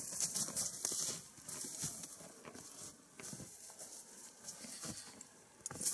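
Steps crunching in snow, heaviest in about the first second, then fainter scattered crunches and rustles with a sharp click near the end.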